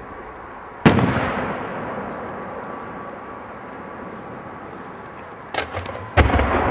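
Large Mexican display firework shells booming overhead. A sharp, loud boom comes just under a second in and rolls away in a long echo. A few smaller cracks come near the end, followed by a second loud boom.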